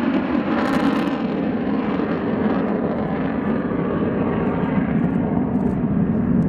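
Fighter jet flying its display overhead, its engines a steady, continuous jet noise.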